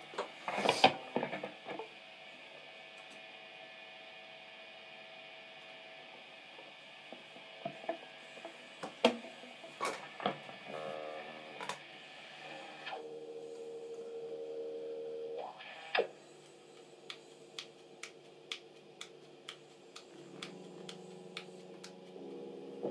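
Electric guitar played softly: a chord struck about a second in rings out and slowly fades, followed by a few quiet single notes and held notes, and a run of light ticks near the end.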